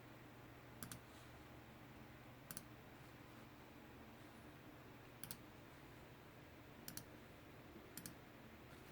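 Five sparse computer mouse clicks, a second or more apart, some of them double, over near silence with a faint low hum.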